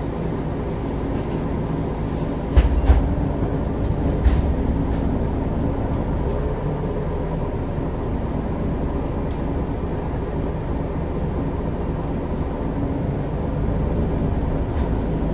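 MAN Lion's City G articulated bus's engine idling, a steady low rumble heard from inside the passenger cabin. A few sharp knocks sound between about two and a half and four and a half seconds in.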